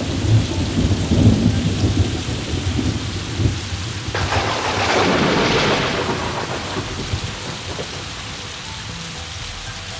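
Thunderstorm: thunder rumbling with heavy rain. A gust of hissing rain swells about four seconds in, then eases off.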